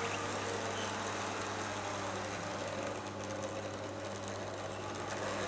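Model Blue Pullman train running on a model railway: its small electric motor hums steadily and its wheels run over the rail joints. It gets a little louder near the end as it comes closer.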